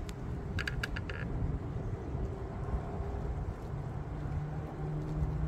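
Low, steady rumble of distant thunder rolling through a thunderstorm, with a few short high chirps about a second in and a low hum joining near the end.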